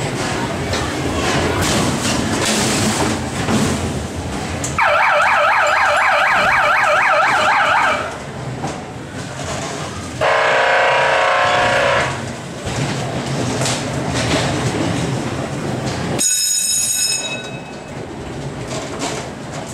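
Haunted-house scare sound effects over a steady rumbling background: a rapidly warbling electronic alarm for about three seconds, then a harsh buzzer for about two seconds, then a brief high-pitched tone near the end.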